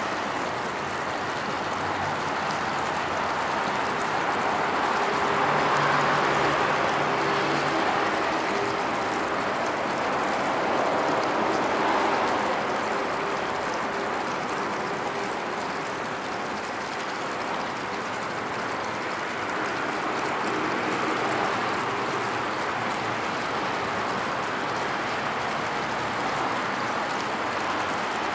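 Steady city hum of traffic and trains. It swells twice in the first half, with a faint low drone under the first swell.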